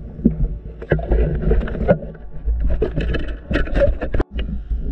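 Underwater sound picked up by a camera while swimming: a steady low rumble of moving water with scattered clicks and knocks. It cuts out for a moment about four seconds in.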